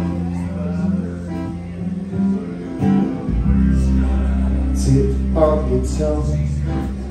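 Live rock band playing: strummed acoustic guitar over electric guitars, bass guitar and drums. The bass drops to a lower sustained note about three seconds in.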